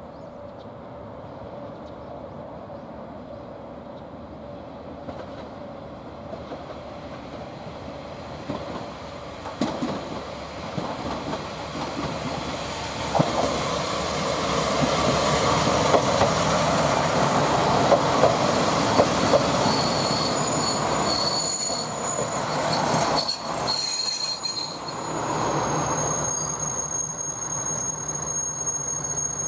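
Two-car KiHa 147 diesel railcar train pulling into a station. Engine and wheel noise grows louder over about ten seconds, with several sharp knocks as the wheels cross rail joints. From about two-thirds of the way in, a high steady squeal of brakes and wheels runs as the train slows to a stop.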